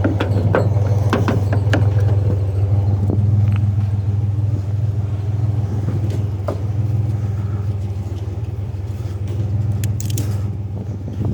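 Vehicle engine idling with a steady low hum, with a few sharp metallic clicks and rattles in the first couple of seconds and again near the end.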